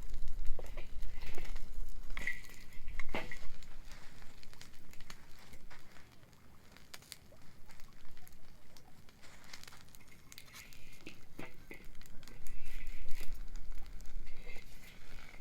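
Beach bonfire crackling, with irregular sharp snaps and pops of burning wood, over a low rumble that fades in the middle and returns near the end.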